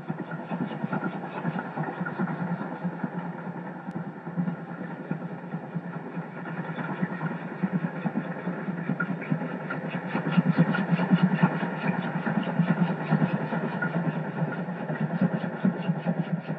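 Recorded train sound laid over a model railway: a train running past with a steady rumble and a fast rhythmic beat, growing louder partway through.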